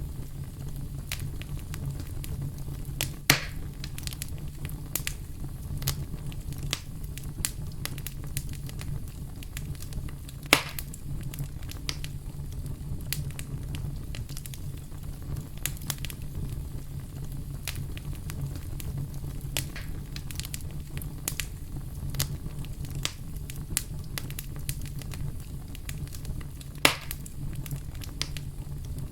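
Fire crackling in a fireplace: a steady low rumble with frequent small crackles and three louder pops, at about 3, 10 and 27 seconds in.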